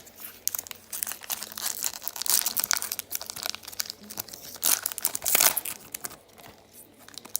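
A pack of SP Authentic hockey cards being torn open, its wrapper crinkling and crackling irregularly, with several louder crinkles.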